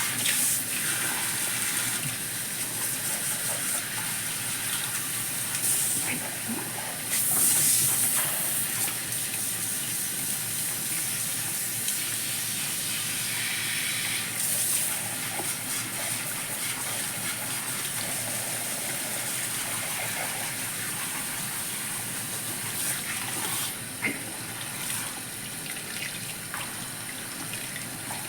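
Warm water spraying from a salon shampoo-bowl shower head onto hair: a steady hiss of running water with a few louder surges.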